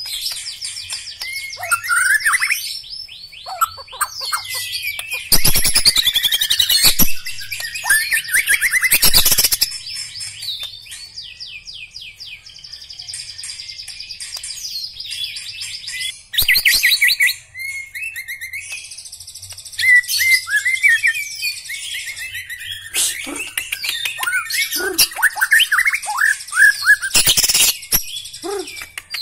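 White-rumped shama singing a long, varied song of clear whistles, quick trills and fast gliding notes, broken several times by loud harsh rattles.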